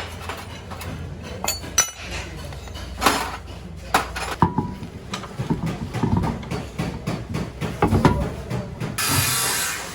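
Metal tools and parts clinking and knocking against each other in irregular light strikes, with a short burst of hissing about nine seconds in.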